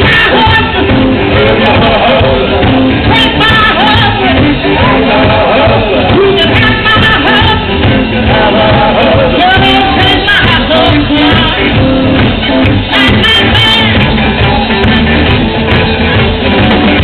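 Live blues band playing loudly: electric guitars, bass guitar and drums, with a woman singing.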